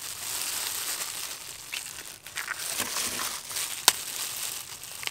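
Gloved hands squeezing and mixing flour-coated chicken wings in a steel bowl, the plastic gloves crinkling steadily, with a sharp click a little before four seconds in.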